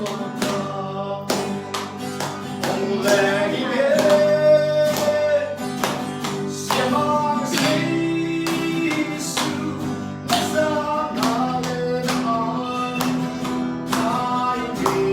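Worship song: voices singing a held melody over a guitar and a steady beat.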